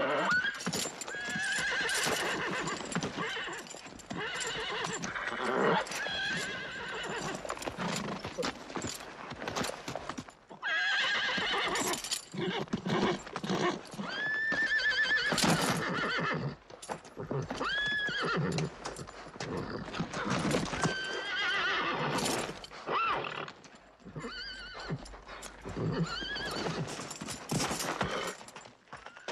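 A horse neighing and whinnying again and again, shrill calls that rise and fall, over the stamping and clatter of its hooves as it rears and plunges.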